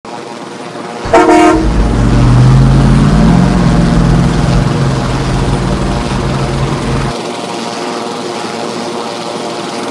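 A vehicle horn blasts briefly about a second in, then a heavy vehicle's engine runs with a low drone until it cuts off suddenly about seven seconds in. A steady hum runs underneath.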